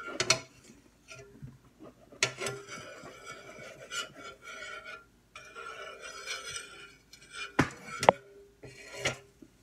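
Metal kitchen utensils clinking and knocking against pans and dishes on a counter, with a few sharp knocks near the end.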